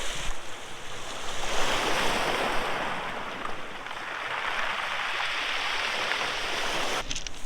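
Sea waves breaking and washing up the beach, a surge of surf about one and a half seconds in.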